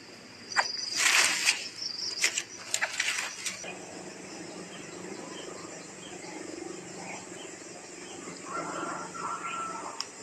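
Steady chirring of insects in the surrounding vegetation. In the first three seconds or so it is broken by a few short, harsh rushes of sound, and a brief high tone comes near the end.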